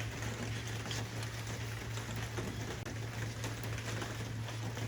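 Steady rain falling, an even hiss with no distinct events, over a constant low hum.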